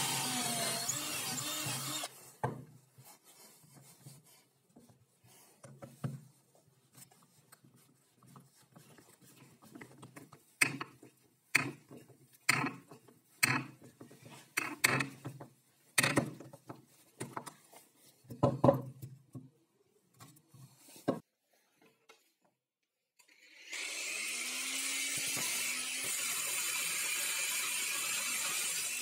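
A cordless drill bores into plywood for about two seconds. After a quiet stretch comes a run of sharp clicks and knocks, one every half second to a second, as a steel threaded rod is turned into the plywood block. About 24 seconds in, an angle grinder starts and runs steadily, cutting through the steel rod.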